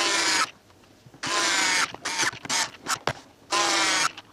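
Bosch PSR Select cordless screwdriver running in short bursts of about half a second on the screws of a pressure-washer gun's plastic handle, a pitched motor whine that starts and stops sharply. There are three main runs with a few quick blips of the trigger in between.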